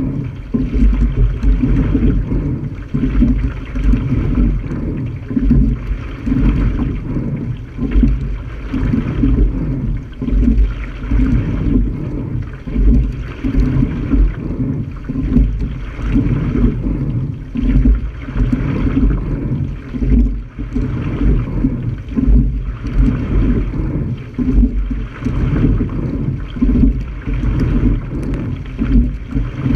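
Wind buffeting a bow-mounted camera's microphone and water rushing along the hull of a single sculling shell under way, the noise swelling and easing every second or two.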